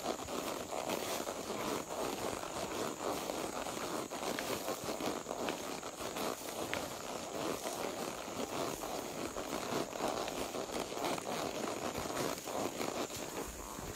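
Steady rustling and crackling from movement on a horseback trail ride, dotted with many small clicks, over a faint steady high tone.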